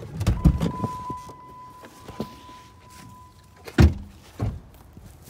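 A parked Jeep's door being opened and the occupant climbing out while a steady electronic warning tone from the vehicle sounds for about three seconds. About four seconds in the car door slams shut with a heavy thump, followed half a second later by a lighter knock.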